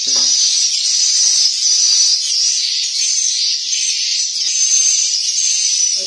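Loud, unbroken high-pitched twittering of swiftlets filling a swiftlet nest house.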